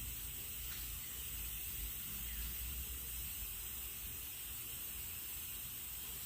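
Steady faint hiss with a low rumble underneath: background noise with no distinct sound event.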